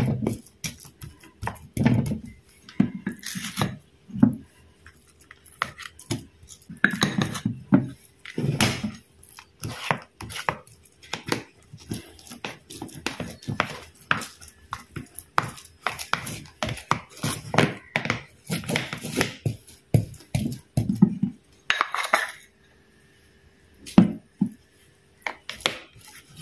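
Plastic rice paddle scraping and tapping against a metal cake tin as a sticky biscuit-and-Nestum mixture is spread and patted flat. The scrapes and taps come irregularly, with a short lull near the end.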